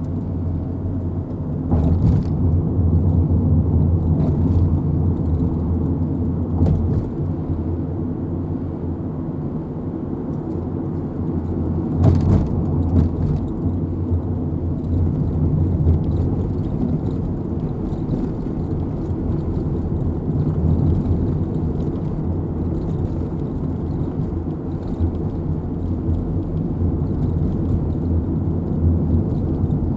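Steady low rumble of a vehicle running, with a few brief knocks.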